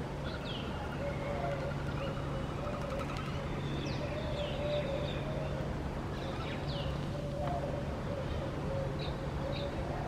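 Short, high, downward-sweeping bird chirps, single or in quick pairs, every few seconds, over a steady low hum and a faint wavering tone.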